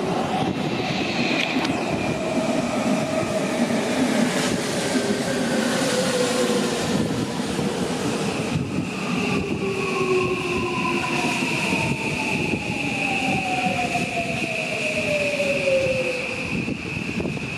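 Odakyu 5000 series electric commuter train running along the platform and slowing, its wheels rumbling and knocking over the rail joints. The traction motor whine falls steadily in pitch as the train brakes, with a steady high tone over the second half.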